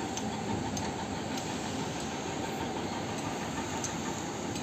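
Steady broad background noise, like distant machinery and wind on the open deck, with faint ticks about every two-thirds of a second.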